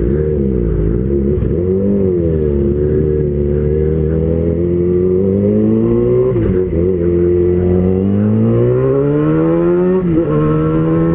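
Yamaha XJ6's inline-four engine through a Jeskap full exhaust, accelerating. Its pitch wavers for the first couple of seconds, then climbs steadily, falling back at gear changes about six and a half and ten seconds in.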